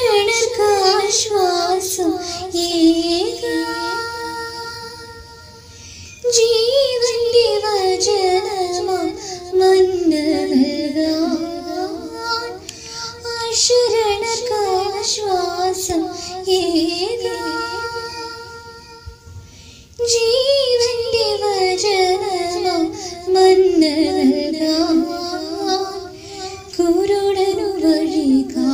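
A solo female voice sings a slow, ornamented devotional song melody over soft music. It comes in long phrases that fade and start again about six and twenty seconds in.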